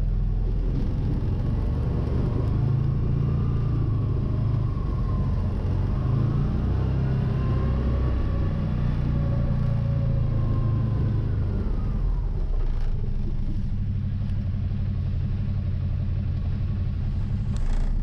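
CFMOTO ZForce 800 side-by-side engine running, heard from inside the cab as the machine moves off: a steady low rumble, with a fainter whine above it that rises and falls in pitch a few times mid-way.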